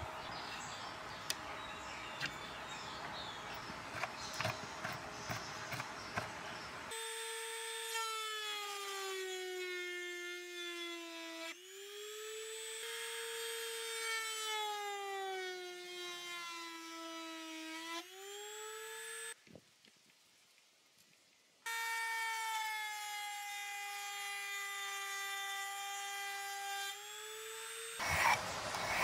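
Dremel rotary tool in a plunge router base, running at high speed with a high-pitched whine that sags and recovers in pitch as it routes a groove in a wooden board. The run is split by a couple of seconds of near silence. Before the tool starts there is light handling clicking.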